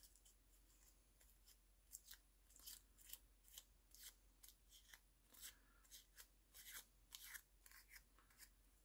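Faint crinkling rustles of red paper raffia being unravelled and scrunched between the fingers, short and irregular, about two a second from around two seconds in.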